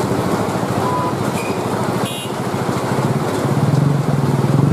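Motor vehicle engines running in heavy rain, over a steady hiss of rain. An engine grows louder about three-quarters of the way through.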